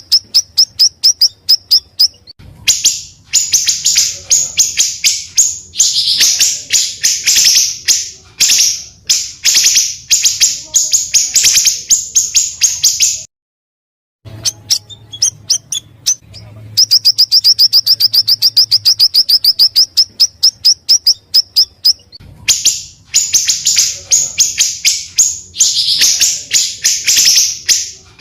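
Small songbirds calling: a long, fast trill of high repeated notes (a 'roll') gives way to harsh, rasping bursts of song ('rough shots'). Near the middle there is a short silence, after which the same trill-then-rasps sequence plays again.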